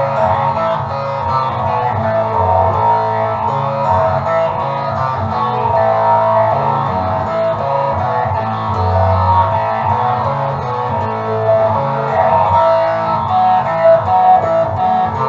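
Instrumental music at a steady level, with sustained notes over a low bass line.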